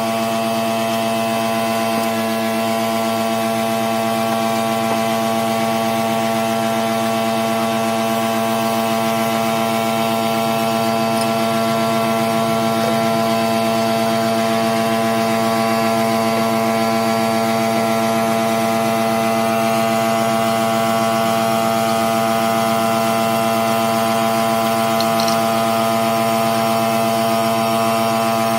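A motor or engine running at a constant speed, giving a steady hum with an even pitch that does not change.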